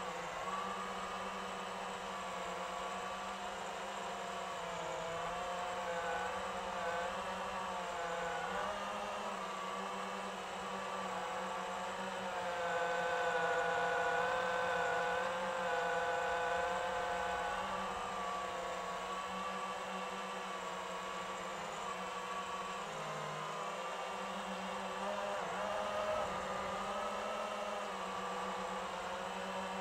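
FPV quadcopter's electric motors whirring in flight, heard from the drone's own camera: several tones that waver up and down as the throttle changes, louder for a few seconds about halfway through.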